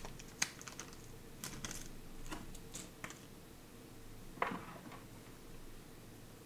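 Faint, scattered small plastic clicks and light rustles from fingers handling an LED strip's small connector adapter, several in the first three seconds and one sharper click about four and a half seconds in.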